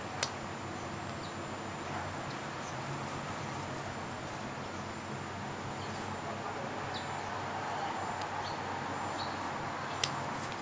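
Handling of a stainless steel Franck Muller Master Banker wristwatch at its crown: a sharp click a moment in and another near the end, with a few faint ticks between, over a steady hiss.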